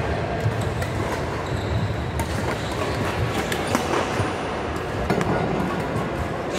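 Badminton rackets hitting a shuttlecock in quick, irregular clicks over the steady rumbling din of a busy indoor sports hall.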